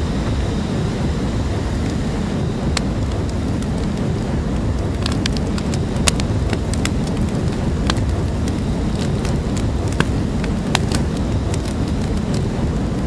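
Flamethrower firing: a continuous, loud rushing flame noise with sharp crackles and pops scattered through it.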